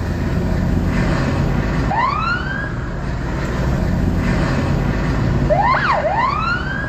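Police siren giving short rising whoops, one about two seconds in and a quick up-down-up burst near the end, over steady vehicle engine and road noise.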